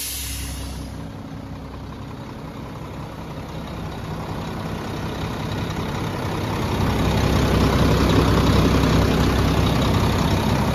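Mack refuse truck's diesel engine idling steadily, louder from about seven seconds in as it is heard up close at the open engine bay. At the very start, the tail of a sharp air hiss fades away.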